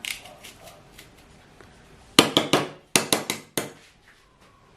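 Sharp knocks and clinks of a kitchen utensil against a bowl: a quick run of them a little over two seconds in, another run about a second later, then a single knock.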